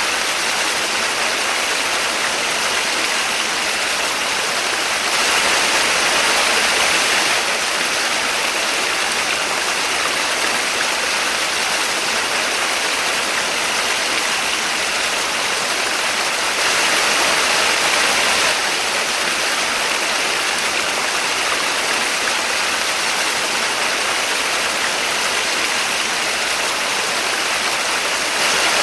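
Small waterfall: a steady, continuous hiss and splash of falling water with little low rumble. It grows slightly louder for a couple of seconds twice.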